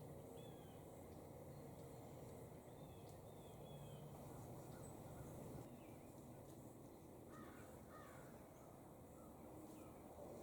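Faint outdoor woodland quiet with a few distant bird calls: a run of short chirps in the first few seconds and a couple more calls about three-quarters of the way through.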